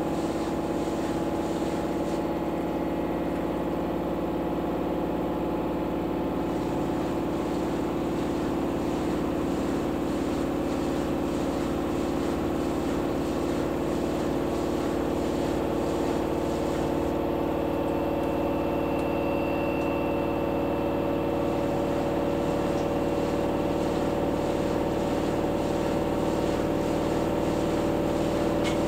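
LG AiDD Steam F4V910BTSE direct-drive washing machine in its final spin, the drum turning at a steady speed with an even motor hum of several tones.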